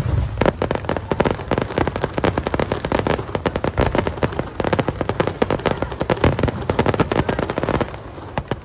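Aerial fireworks: a low boom at the start, then dense crackling, many sharp pops a second, thinning out near the end.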